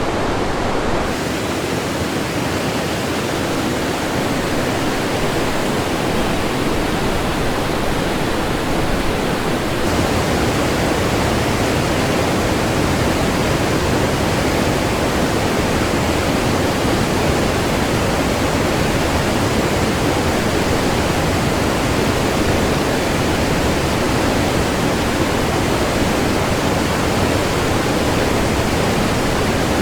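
Loud, steady rush of the Kolvitsa River's white water, a full wash of sound from deep to high, its tone shifting slightly about a second in and again about ten seconds in.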